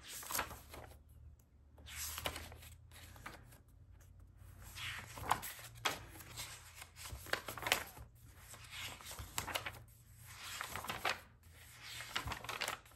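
Paper pages of a Midori A5 dot-grid notebook being turned one after another, a brief papery swish and flutter about every second or so.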